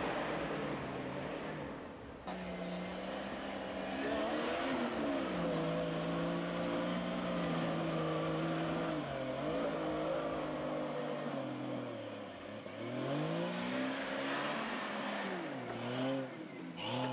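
Off-road 4x4 vehicle's engine revving, its pitch holding steady, sagging and climbing again several times, with quick rev blips near the end.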